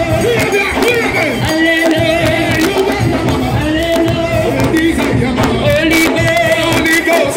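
Congregation singing a lively church song with held, wavering notes, and percussive beats keeping time throughout.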